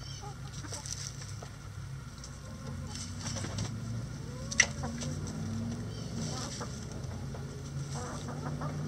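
Backyard chickens clucking softly while they peck at scattered feed, with small pecking and scratching clicks on the dirt. One sharp click about halfway through is the loudest sound.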